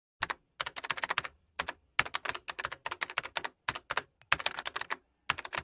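Typing on a computer keyboard: quick runs of keystroke clicks with short pauses between them.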